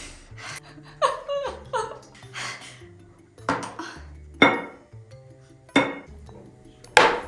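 Background music with a steady low bass, over irregular knocks and scrapes of a wooden spatula against a plastic container as set gummy candy is pried out of it.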